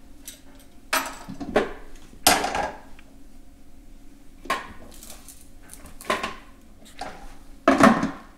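Kitchen handling noises: a string of separate knocks, clatters and scrapes on a wooden butcher-block cutting board as carrot peelings are cleared into a plastic scrap bucket, its lid taken off and put back. The loudest clatter comes near the end.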